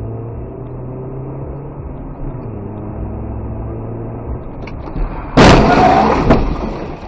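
Car engine and road noise running steadily inside a vehicle, then a sudden loud crash about five seconds in, a collision impact with crunching that dies away over about a second.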